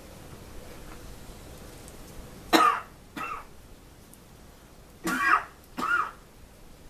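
A man coughing twice, each time a double cough: a loud burst followed by a shorter, weaker one. The second cough comes about two and a half seconds after the first.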